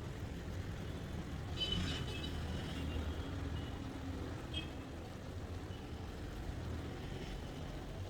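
Steady low rumble with a couple of light metallic clinks, like a utensil against a pan or dish, about two seconds and four and a half seconds in.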